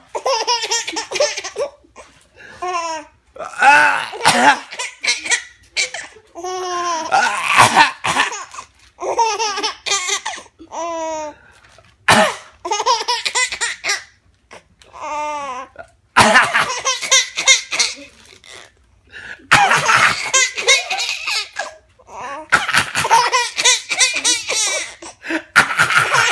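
A baby laughing in repeated fits, with a man's coughing in between that sets off each fit.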